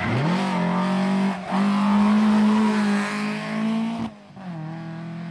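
Volvo rally car's tuned 16-valve engine revving hard under full acceleration, with a short break for a gear change about one and a half seconds in. Near four seconds it drops for another shift and runs on lower and quieter as the car pulls away.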